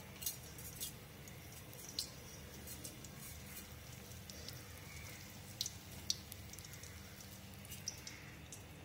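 Egg roll deep-frying in hot oil in a wok: a steady low sizzle with scattered sharp pops and crackles from the oil.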